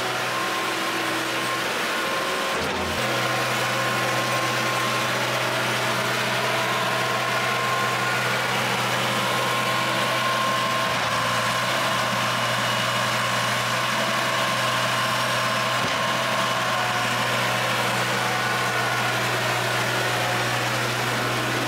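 A vehicle engine running steadily. Its low hum shifts and gets slightly louder about three seconds in.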